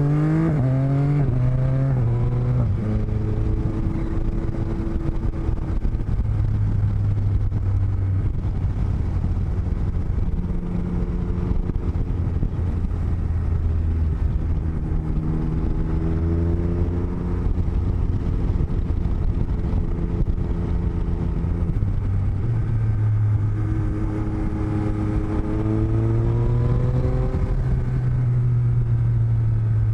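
Motorcycle engine heard through microphones in a helmet's cheek lining, with a steady rush of wind noise. The engine pitch climbs in the first couple of seconds, holds steady while cruising, and climbs again about halfway through and near the end as the bike accelerates.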